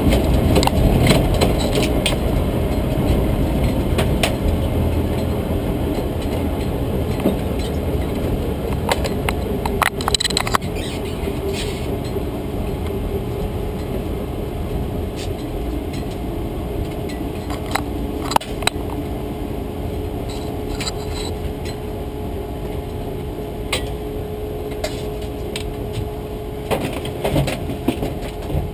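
Drag race car moving slowly, heard from inside the cockpit: a steady low rumble that slowly fades, with scattered clicks and rattles.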